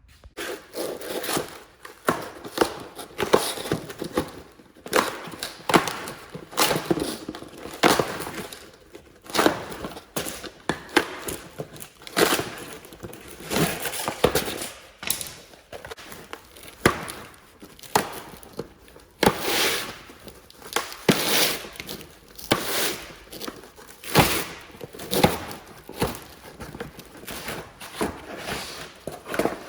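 Irregular knocks and clatter of hands-on shop work on a combine grain head: dozens of sharp impacts with pauses in between.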